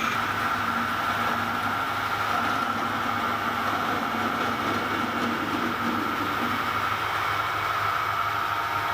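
Metal lathe running steadily while a parting tool cuts a piston off the bar stock, with a steady whine over a low hum.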